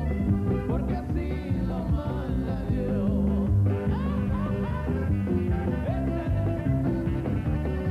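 Band music with a steady bass line and a melody over it, playing as break music.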